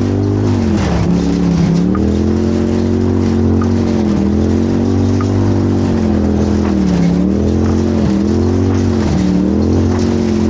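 Off-road race vehicle's engine running hard, its pitch sagging and climbing back a few times as the throttle is lifted and reapplied, over a constant rumble of driving noise.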